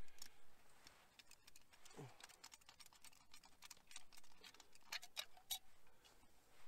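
Faint, irregular clicks and taps of camp cooking kit being handled while coffee is made.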